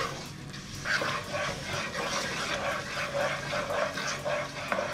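Wooden spatula stirring and scraping diced carrots around a nonstick pot in ghee over low heat, in short strokes a few times a second, with a gentle sizzle underneath.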